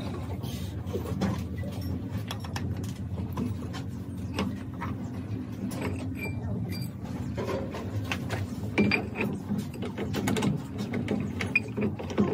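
Metal lathe running with a splined truck countershaft in its three-jaw chuck: a steady low hum from the machine's gearing, with scattered light clicks and knocks that grow sharper near the end.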